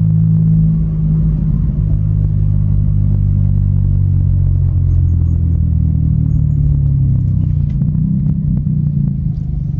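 Volkswagen Polo Highline's 1.0 turbo three-cylinder engine running through a sport exhaust with the intermediate and rear mufflers removed, the car driving along with a steady low drone. The engine note shifts slightly about a second in and again around seven to eight seconds.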